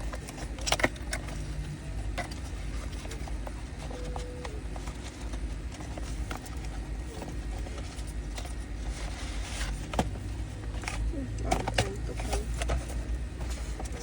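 Scattered short clicks and knocks over a steady low rumble.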